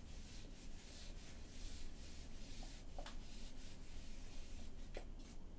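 Whiteboard eraser wiping across a whiteboard in repeated rubbing strokes, with two short sharp sounds about three and five seconds in.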